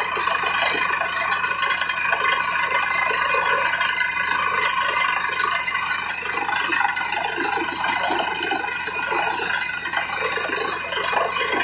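Truck-mounted borewell drilling rig running steadily as it drills, a constant high ringing whine over a rough churning noise as muddy water and rock cuttings pour out of the hole around the drill pipe.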